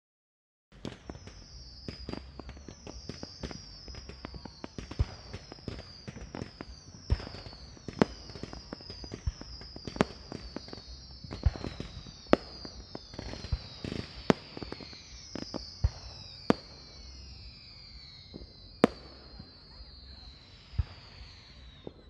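Fireworks going off in quick succession: many high whistles overlap, each one falling in pitch, among frequent sharp bangs and pops, a handful of them much louder than the rest. The sound starts after a brief moment of silence.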